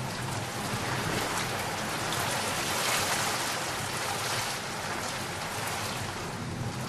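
Steady heavy rain pattering on a surface, with individual drops.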